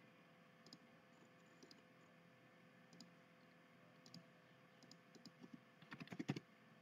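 Faint, scattered computer mouse clicks, then a quick run of keyboard keystrokes about six seconds in as a dimension value is typed in, over quiet room tone.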